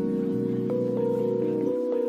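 Background music: slow, soft ambient chords of held notes that change about once a second, with the bass dropping out near the end.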